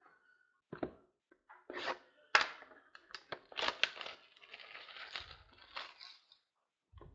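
A sealed trading-card box being torn open: tearing and crinkling of wrapping and cardboard in a quick run of rustles and sharp snaps, the loudest snap about two and a half seconds in.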